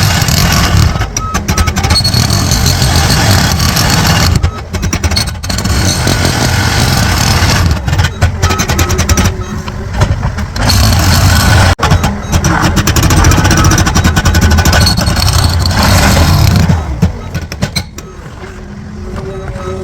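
Loud engine-driven street-construction machinery running, a low engine drone under harsh noise, dipping briefly a few times and easing off near the end.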